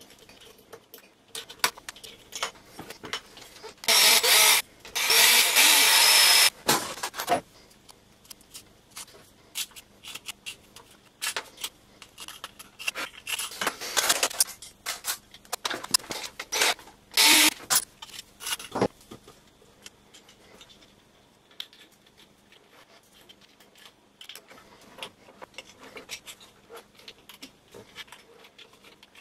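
Hands dismantling a small camera gimbal: scattered clicks and taps of small screws, tools and plastic parts, with loud scraping rubs about four to six seconds in and again around fourteen and seventeen seconds.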